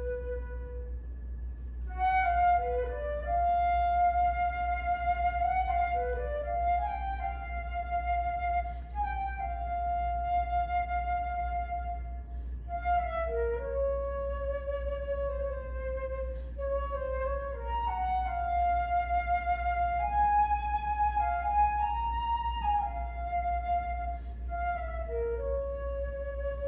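Solo flute playing a slow, free melody: a held low note, then after about two seconds a phrase of sustained higher notes with vibrato, moving stepwise and settling back lower near the end.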